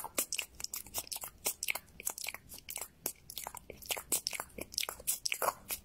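A dachshund licking at a lion's mouth: a quick, irregular run of wet smacking licks, about four or five a second.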